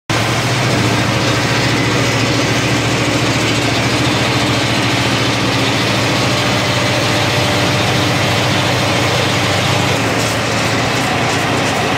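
Peanut-processing line running: a steady motor hum with rapid vibration and the hiss and rattle of peanuts moving over steel trays and a belt conveyor. From about ten seconds in, a light patter of peanuts dropping into a steel hopper joins it.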